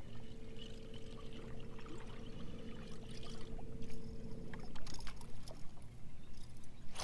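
Bass boat's bow-mounted electric trolling motor humming steadily and cutting off about four and a half seconds in, over water lapping against the hull. A few light clicks follow near the end.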